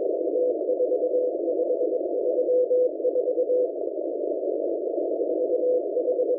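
M01 numbers station sending Morse code over shortwave: a single mid-pitched beep keyed in dots and dashes over a narrow band of receiver static. The keying pauses for about two seconds a little past the middle, leaving only the static, then starts again near the end.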